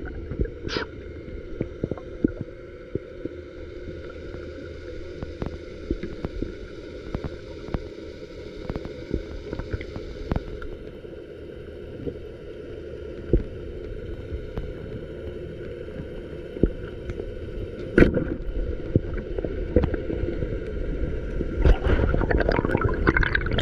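Underwater sound: a steady hum with scattered sharp clicks and crackles, then rushing, splashing water from about two seconds before the end.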